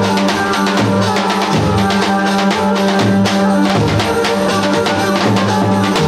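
Music with a steady drum beat over a pulsing bass line.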